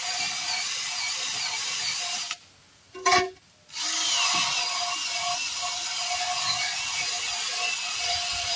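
Cordless power tool scrubbing the bead seat of a truck wheel rim clean, a steady abrasive hiss. It stops a little over two seconds in, gives one short burst about a second later, then runs on steadily.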